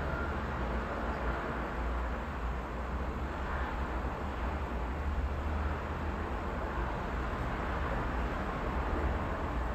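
Strong wind blowing, with a steady low rumble and a mixed wash of road traffic from cars passing below.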